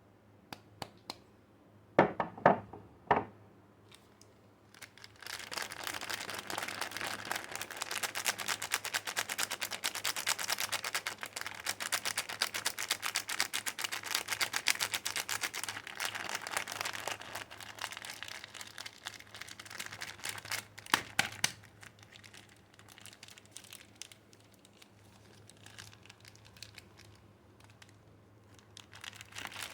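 Soap packaging being handled and unwrapped: a wrapper crinkling and tearing in a long run of rapid crackling, with a few sharp knocks of the bar or box being set down near the start and again later.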